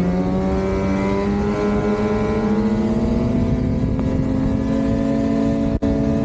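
Lynx Shredder RE snowmobile's 850 turbocharged two-stroke engine running under way, its pitch rising slowly and steadily as it picks up speed. Near the end the sound cuts out for an instant.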